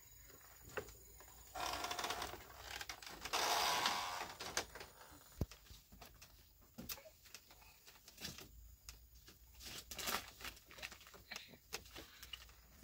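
Rustling and handling noise as a cloth baby carrier and bags are shifted about on a woven bed mat, with scattered light clicks and knocks on bamboo. The loudest rustle comes about three to four seconds in.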